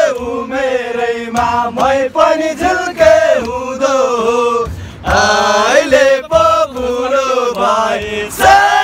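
A group of men singing a Nepali folk song together in unison, with long held notes.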